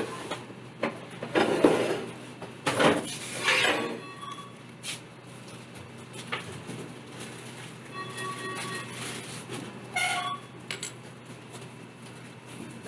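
Light clicks and clinks of small hard parts being handled, most of them in the first few seconds, with a few faint short steady tones later on.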